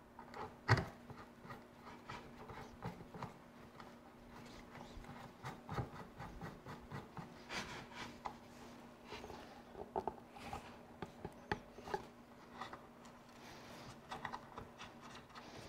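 Wood screws being driven by hand with a screwdriver into wood: a faint, irregular run of creaks, scrapes and clicks as each screw turns, with one sharper knock near the start.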